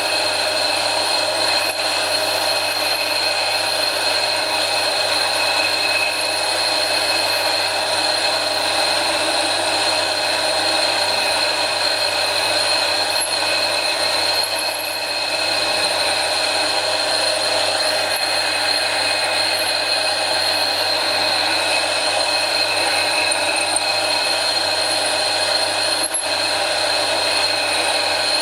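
Mini lathe running steadily, its motor and gears giving a constant whine with several fixed tones over a low hum, dipping slightly for a moment about halfway.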